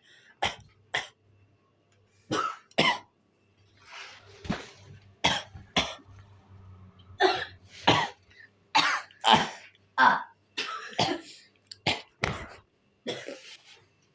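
A person coughing hard in a long run of short coughs, often in quick pairs, with throat clearing, after tarhana soup went down the wrong way.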